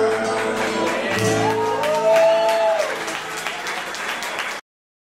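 The last acoustic guitar chord and a held sung note of a song ring out, then an audience breaks into applause. The sound cuts off abruptly a little over four seconds in.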